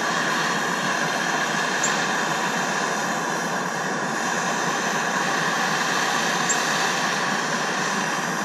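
Two handheld gas torches burning side by side with a steady hiss of flame, heating seized, corrosion-frozen bolts where they pass through an aluminum horn bell to free them.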